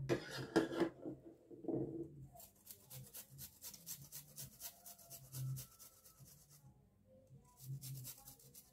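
Half a red onion rubbed back and forth on a stainless-steel flat hand grater: a quick run of rasping strokes, about four a second, with a short pause near the end before a few more.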